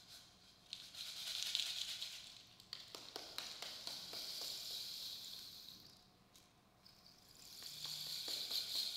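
Dried seed pod rattle tilted and shaken, its loose seeds making a soft hissing rattle. The rattle swells and fades in three waves, with a few light clicks about three seconds in.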